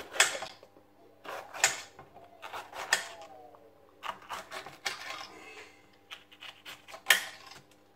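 Kitchen knife slicing a red bell pepper on a glass cutting board: irregular sharp clicks and taps as the blade strikes the glass, the loudest about seven seconds in.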